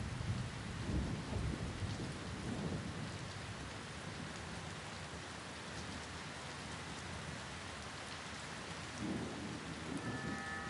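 Heavy rain pouring and splashing on wet pavement in a steady hiss, with low rolls of thunder in the first few seconds and again near the end.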